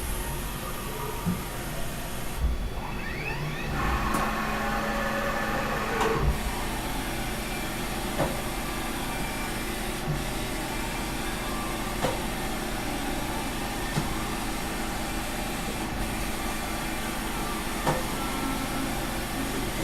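Haas VF-2 vertical machining center with a 20 HP geared-head spindle, running through a demonstration. A steady machine hum and whine, with a rising whine about three seconds in and a sharp click roughly every two seconds.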